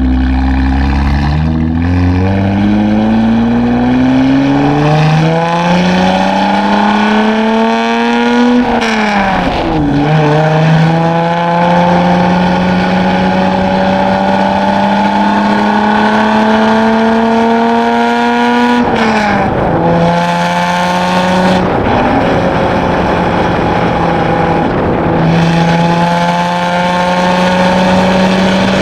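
2016 Chevrolet Camaro RS exhaust through a Borla ATAK axle-back system, the car accelerating through the gears. The exhaust note rises in pitch with a few quick upshifts in the first couple of seconds, then makes a long pull up to a shift about nine seconds in. It climbs slowly again to another shift near twenty seconds and runs steadier afterwards.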